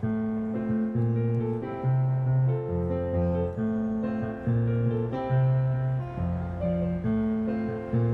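Digital keyboard playing an instrumental introduction: sustained chords over a moving bass line, the harmony changing about once a second.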